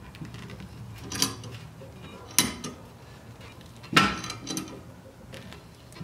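Steel C-clamp being cranked by hand to push a brake caliper piston back into its bore, its metal handle clinking as it turns; three sharper clinks about a second and a half apart among lighter ones.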